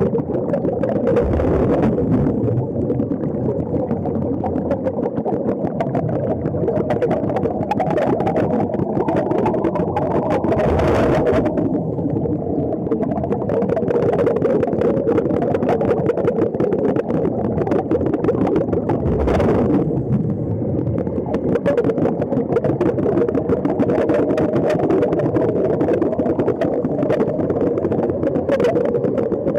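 Underwater noise: a continuous rush of air bubbles venting from surface-fed diving helmets, with a dense crackle and a couple of brief louder swells.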